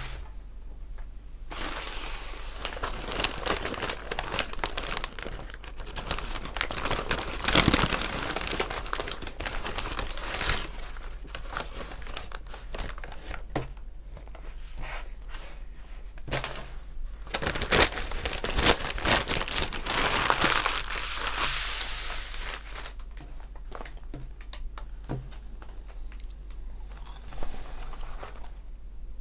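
McDonald's brown paper takeaway bag rustling and crinkling as it is opened and the fries carton is pulled out, in two long stretches and a short one near the end.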